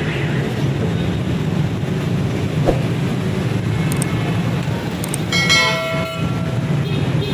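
Busy street traffic: a steady rumble of engines, with a vehicle horn sounding over it for the last couple of seconds.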